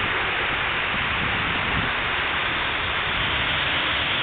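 Unisphere fountain's water jets splashing down into its pool: a steady rushing hiss like heavy rain.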